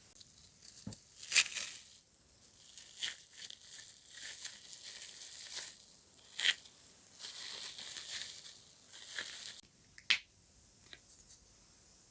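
Close-miked ASMR trigger sounds: soft, irregular crinkling and rustling with several sharp clicks, in short bursts with brief pauses between.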